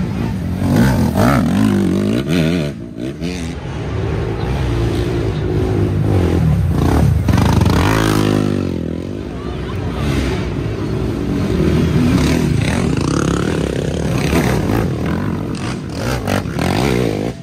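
Racing ATV (quad) engines revving hard as the quads climb a steep hill. The engine pitch rises and falls with the throttle, with one long rising rev about halfway through.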